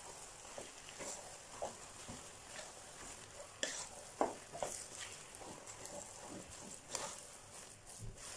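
Wooden spatula stirring and scraping a thick mix of glutinous rice, mung beans and brown sugar in a nonstick pot, making irregular soft scrapes and knocks.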